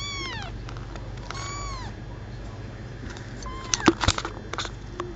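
Four-week-old kitten mewing: two high mews that fall in pitch in the first two seconds, and a shorter one about three and a half seconds in. Just after it come a few sharp knocks and clicks, the loudest sounds here.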